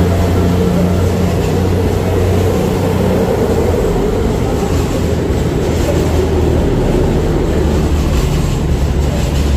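EMR Intercity diesel multiple-unit train moving slowly along the platform, its underfloor diesel engines giving a steady low drone.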